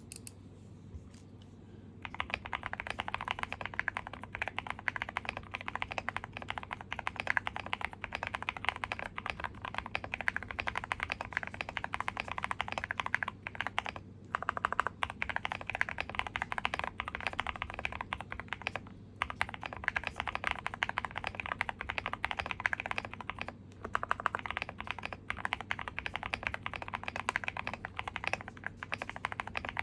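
Continuous fast typing on a mechanical keyboard: a Tiger80 with a polycarbonate plate, Mr. Suit PCB and Moyu x JWK Hades switches, fully foamed with three layers of tape. The typing starts about two seconds in and breaks briefly a few times.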